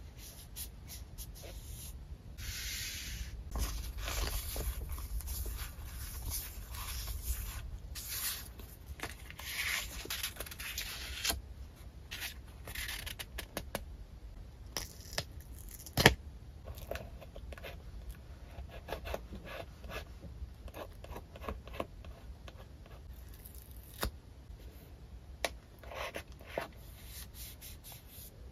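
Paper rustling and scraping as sticker sheets and paper pieces are handled, in irregular bursts with soft taps and clicks. One sharp click about halfway through is the loudest sound.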